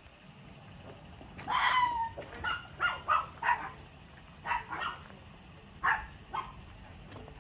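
A dog barking in a string of short, high-pitched barks, the first one drawn out and falling in pitch.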